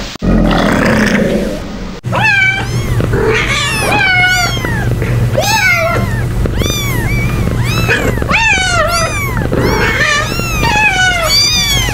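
Animal calls. A rough, roar-like sound runs for about the first two seconds. After a sudden cut, a rapid series of short, high calls follows, each rising and falling in pitch, several overlapping, over a steady low hum.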